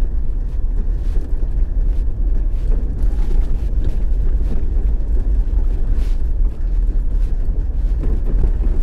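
Steady low rumble of a vehicle driving along a road, with road and wind noise on the microphone.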